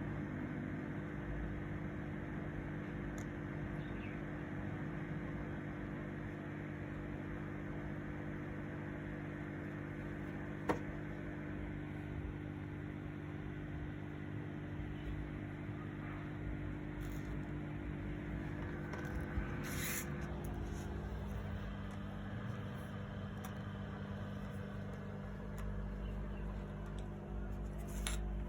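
A steady hum made of several low tones over a noisy hiss, with one sharp click about eleven seconds in.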